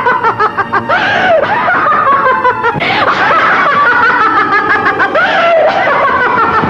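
A person laughing loudly and at length, peal after peal with no break.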